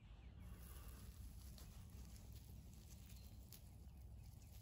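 Near silence: a faint low rumble with a few faint ticks.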